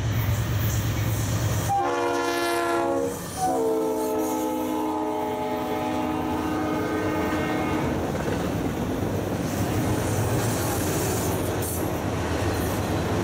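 Freight train's diesel locomotive passing close by, sounding a multi-tone air horn: a short blast about two seconds in, then a long blast that drops slightly in pitch as the locomotive goes by. After that, autorack cars roll past with a steady rumble and wheel clatter.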